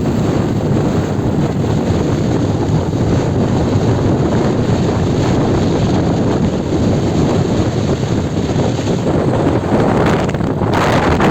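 Wind rushing over the microphone of a moving motorcycle, mixed with engine and road noise. About ten and a half seconds in the noise turns brighter and hissier.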